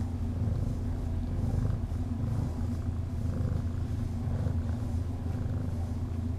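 Domestic cat purring loudly and steadily, a contented purr while her belly is rubbed.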